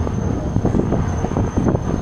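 Wind buffeting the microphone: a loud, gusty low rumble that flutters unevenly, with a faint steady high whine behind it.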